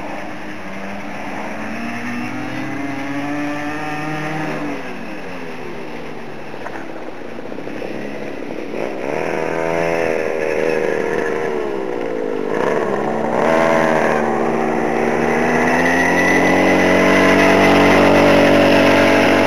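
A motor vehicle engine running, its pitch climbing and dropping away several times, as with acceleration through gear changes. It grows louder toward the end.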